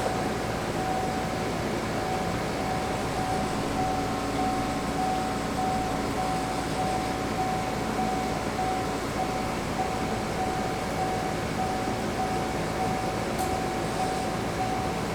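FASS TS C12 165G electric diesel lift pump running steadily while priming the fuel system: an even hum with a thin, steady whine over it.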